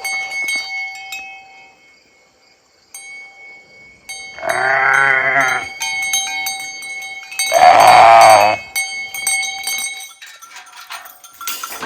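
Sheep bleating: two long, loud baas about three seconds apart.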